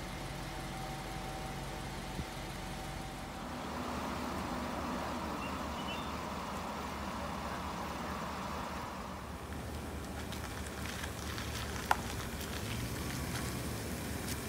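Steady low hum of idling emergency-vehicle engines, with a single sharp click about twelve seconds in.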